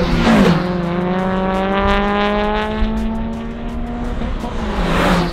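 Mazda MX-5 NC race car's four-cylinder engine pulling hard through the gears on track. Its pitch climbs steadily for about four seconds and drops at an upshift about half a second in and again near the end.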